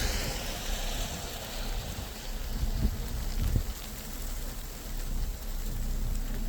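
Wind buffeting the microphone: a low rumble with two stronger gusts about three and three and a half seconds in, over a steady soft hiss.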